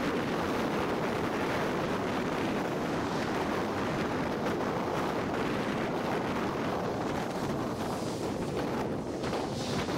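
Wind rushing over a camera microphone while moving at road speed, with the steady noise of road and traffic underneath.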